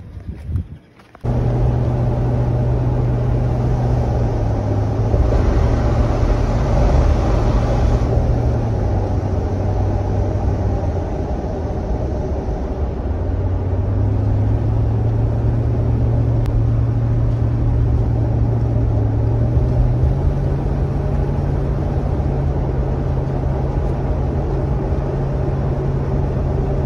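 Toyota Tundra pickup driving, its engine and road noise running steadily, with the engine pitch stepping up and down as the speed changes. There is a stretch of louder hiss about five to eight seconds in.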